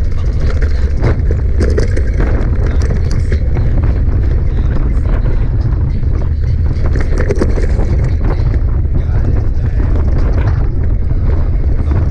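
Mountain bike riding over a rough trail: wind rumbles steadily on the microphone, and the bike keeps up frequent small rattles and knocks.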